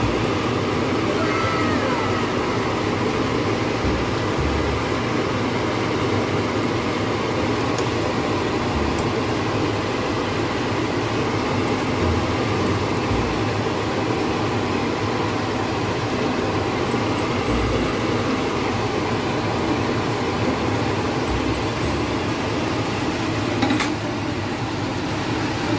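Fish nuggets deep-frying in a saucepan of oil on an induction cooker: a steady sizzle with a hum beneath it, loud enough to be called very noisy. A sharp metal click from the tongs near the end.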